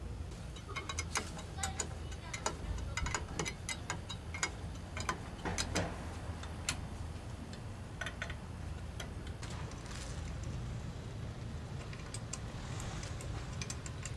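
Irregular light clicks and knocks from a three-phase electric motor being handled and shifted by hand on a wooden bench, over a steady low rumble. The clicks are dense for the first several seconds and thin out in the second half.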